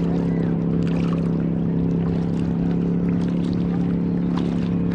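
A steady low hum of unclear source runs throughout and is the loudest sound. Over it come light, scattered splashes and drips from kayak paddles dipping into the water.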